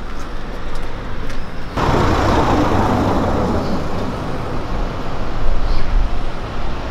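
Outdoor road-traffic noise: the sound of a motor vehicle comes in suddenly about two seconds in and slowly fades away over a low, steady rumble.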